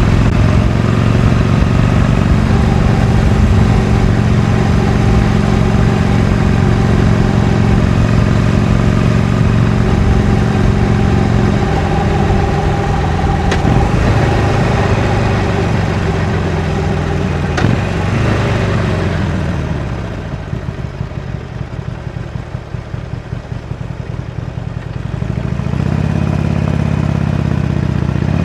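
Harley-Davidson Iron 883's air-cooled V-twin with its stock exhaust, running at a steady cruise, then the throttle rolls off about halfway and the engine note falls over several seconds, with two sharp clicks along the way. It settles into a lower, quieter loping beat and picks up again near the end as the throttle comes back on.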